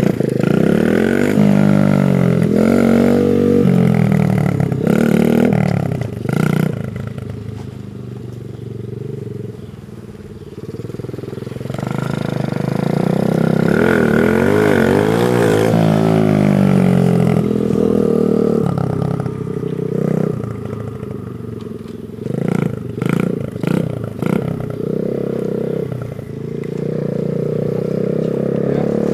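Small minibike engine revving up and down as it is ridden, its pitch rising and falling in repeated glides. It drops back around ten seconds in, comes back louder, and gives a run of short revving blips a little over twenty seconds in.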